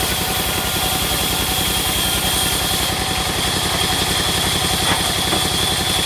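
Large sawmill band saw running steadily, with a rapid even low chugging from its drive and a constant high whine.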